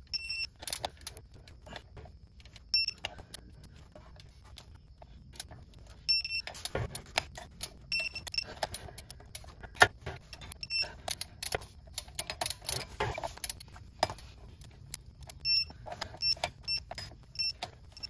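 Torque wrench ratcheting on the flywheel bolts, with irregular clicks and sharp metallic clinks, busiest in the middle stretch.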